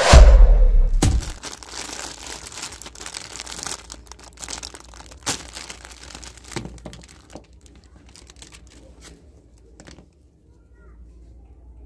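A loud intro sound effect, a falling whoosh over a deep rumble, lasting about a second. Then a thin clear plastic bag crinkles and rustles as it is handled and opened, followed by scattered light clicks and taps as small plastic dolls are taken out and handled.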